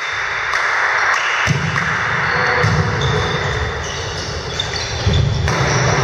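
Volleyball being served and played in a rally in an echoing gym hall: several sharp slaps of hands and arms on the ball, with thuds of players on the wooden floor.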